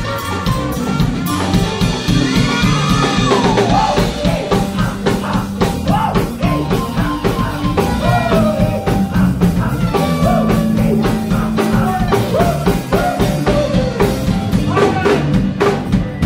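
Psychobilly band playing live: drum kit beating steadily under guitars, with swooping, gliding notes over the top.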